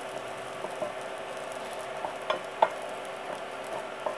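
Bread cubes frying in ghee in a nonstick frying pan, sizzling steadily, while a wooden spatula stirs them with a few light knocks against the pan, the loudest about two and a half seconds in.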